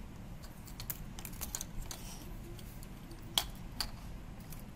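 Light clicks and taps of keychains and a fridge magnet being slid and set down on a wooden table, with metal key rings knocking; the sharpest click comes a little past halfway, another just after. A steady low hum lies under it.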